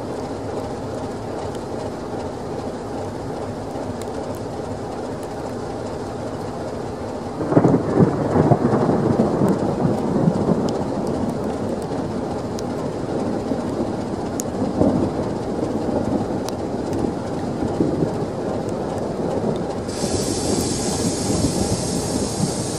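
Thunder: a sudden loud clap about seven and a half seconds in that rumbles away over several seconds, above a steady low drone. A steady hiss sets in near the end.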